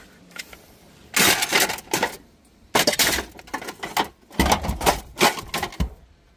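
Metal tools and cookware clattering and knocking as a nail gun and other scrap are set down into a tub holding a steel pot and colander: several rattling clatters, the longest near the end.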